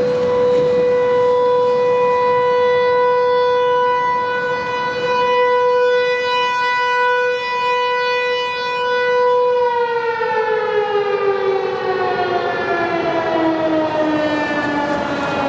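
American Signal Corporation T-128 outdoor warning siren sounding a steady tone, then winding down about ten seconds in, its pitch sliding steadily lower as it runs down at the end of the test.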